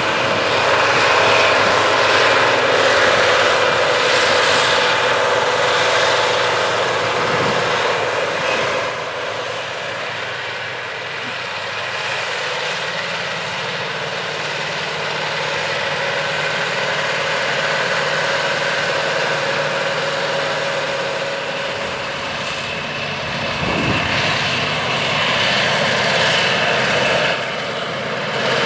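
John Deere 9630T track tractor's 13.5-litre turbocharged six-cylinder diesel running steadily under load while pulling a high-speed tillage disk. The sound eases off somewhat in the middle and grows louder again near the end.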